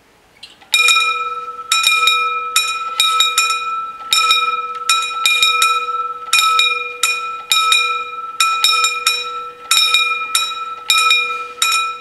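Two level-crossing warning bells ringing, about two to three strikes a second in an uneven, out-of-step pattern. They start about a second in, warning that the barriers are lowering, and stop as the barriers come fully down, the last strike ringing out.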